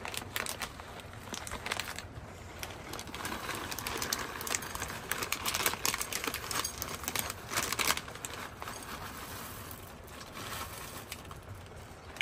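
Plastic bag of dry cat food crinkling as it is handled, with kibble pattering into a clear bowl in a denser stretch from about three to eight seconds in.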